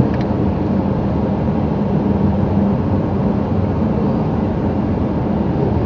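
Steady road and engine noise inside a moving car's cabin: tyres running on wet asphalt, with a constant low hum.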